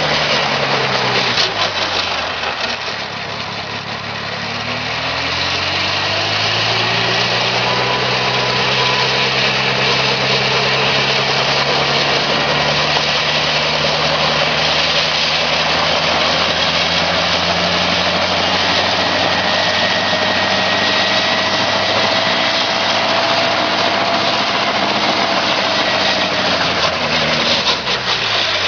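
Homemade light helicopter's engine running with its rotors turning. The engine note sags over the first few seconds, climbs back up about five seconds in and holds steady, then drops again near the end.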